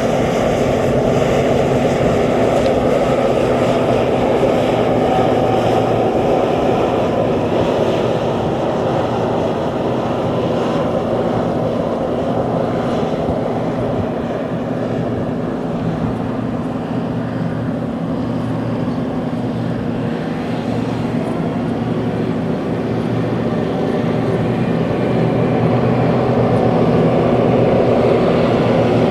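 Heavy diesel harvest machinery running steadily under load, a continuous engine drone with a rumbling hum that grows a little louder near the end.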